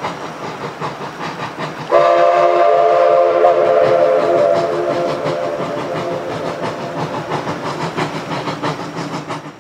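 A steam locomotive working hard, with rhythmic exhaust chuffs throughout. About two seconds in, its whistle sounds one long chord-like blast that slowly fades away.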